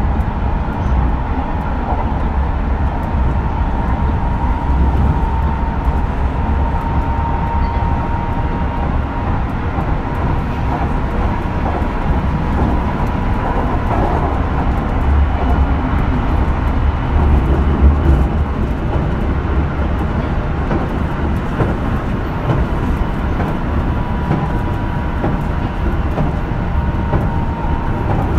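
JR Shikoku 8000 series limited express, with Toshiba GTO-VVVF drive, running at speed: a steady, loud rumble of wheels on rail, with a thin high whine that rises a little and comes and goes.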